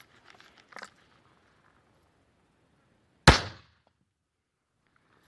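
A single .22 LR gunshot: one sharp crack with a short trailing echo, fired at a bent steel plate set behind a golf ball.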